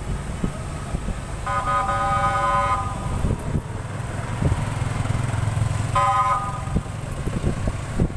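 Vehicle horn honking twice in slow, congested street traffic: one long blast lasting over a second, then a short toot about six seconds in, over steady engine and road rumble.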